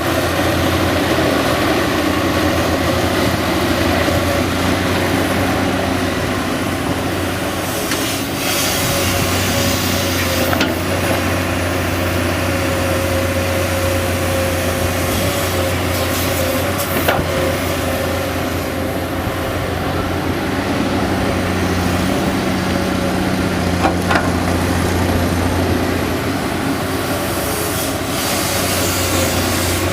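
Hydraulic excavator's diesel engine running steadily while it digs soil, with a few short knocks and scrapes from the working bucket.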